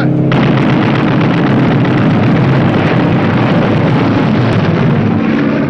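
Loud, continuous din of battle: gunfire and blasts that cut in abruptly a moment in and stop shortly before the end.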